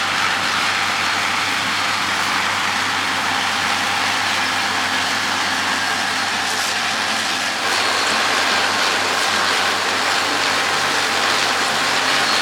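Case IH AF10 combine running steadily at harvesting work, a dense even machinery noise over a low engine hum, stepping up slightly about seven and a half seconds in.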